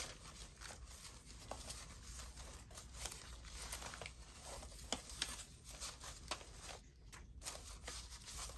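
Scraps of paper being sorted by hand: faint, irregular rustling with light taps and ticks.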